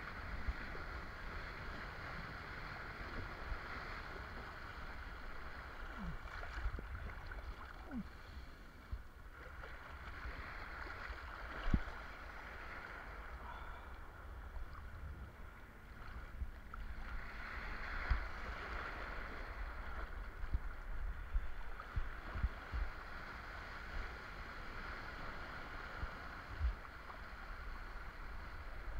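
Steady rush of water and wind as a kiteboard rides through light chop, with low rumbling and scattered short thumps, the loudest a little before halfway.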